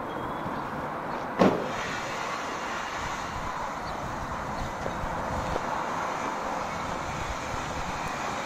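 Steady outdoor noise on a handheld camcorder's microphone while it is carried at walking pace, with one sharp knock about one and a half seconds in.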